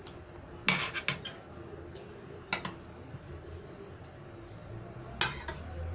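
Metal spoon stirring a thick creamy mixture in a stainless steel pot, clinking sharply against the pot's side several times, with a cluster of clinks near the end.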